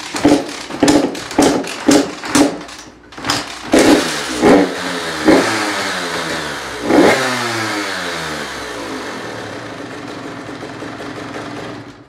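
GasGas MC 85 two-stroke dirt bike engine, choke on, blipped on the throttle in quick revs about twice a second, then a few bigger revs. After the last one the revs sink slowly, and the engine cuts off near the end.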